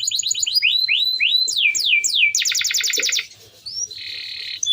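Male domestic canary singing a rolling song. It goes from a fast trill into a series of downward-swooping notes, then a rapid buzzy trill, breaks off briefly about three seconds in, and resumes with a lower rattling trill.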